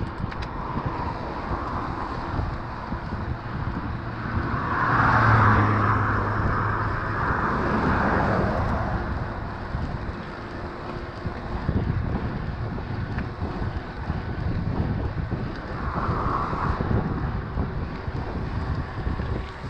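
Wind buffeting the microphone and the tyres of an e-mountain bike rumbling over a trail while riding, growing louder for a few seconds from about five seconds in.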